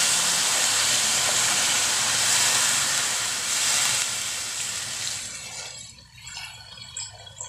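A thin stream of water is poured from a height into a wok of sautéed chicken, splashing steadily into the rising broth. About five to six seconds in the pouring noise fades, leaving small drips and splashes.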